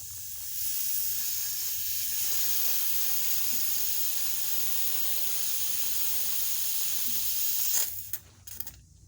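Air hissing out of a heating circulating pump's bleed vent as the pump is vented after refilling the system. It cuts off suddenly about eight seconds in, as the vent is closed.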